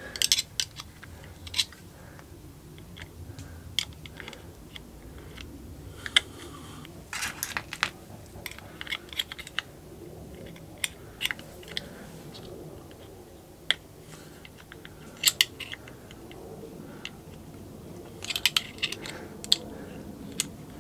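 Steel screwdriver tips clicking and scraping against the steel retaining ring of a Harley-Davidson Sportster's clutch release plate as the ring is pried at. The clicks are sharp and irregular, coming in small clusters near the start, around a third of the way in, and near the end.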